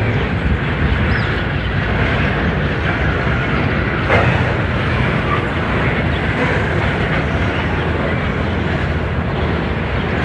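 Freight train of covered hopper wagons rolling past on the rails, giving a steady rumble of wheels and cars, with one sharp knock about four seconds in.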